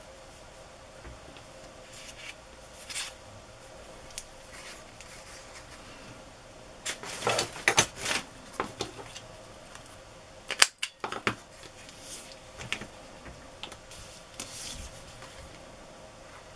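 Paper and card being handled on a craft table: light rustling and scraping, with a busy cluster of crisp paper noises about halfway through and a single sharp click a little later.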